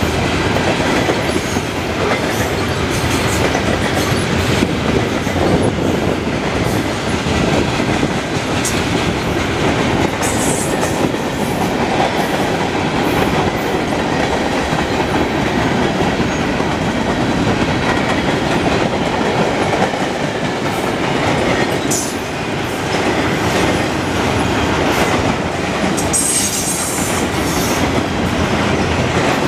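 Freight train tank cars and flatcars rolling past close by: a steady rumble of steel wheels on the rails with clickety-clack over rail joints. Brief high-pitched squeals come about ten seconds in and again near the end.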